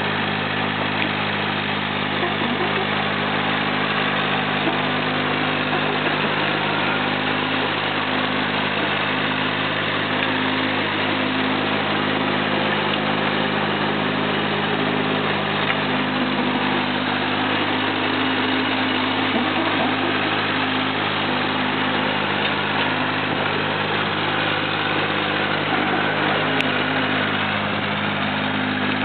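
Caterpillar 301.5 mini excavator's small diesel engine running steadily at constant speed while the machine works.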